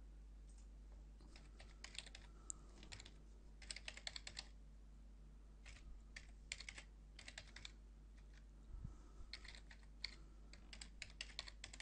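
Computer keyboard being typed on in three quick bursts of key clicks with short pauses between, as an email address and then a password are entered.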